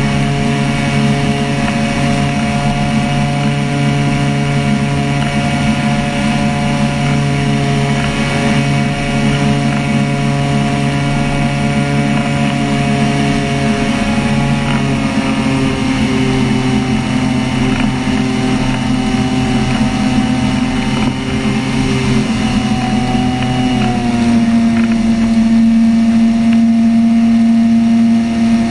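Ultralight flying boat's engine and propeller running steadily in flight, a continuous drone whose pitch shifts twice, as the throttle changes.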